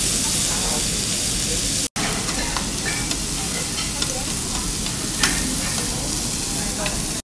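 Pork belly sizzling on a tabletop Korean barbecue grill plate, a steady frying hiss as tongs move the meat. The sound cuts out for an instant just under two seconds in, and a light click comes a little after five seconds.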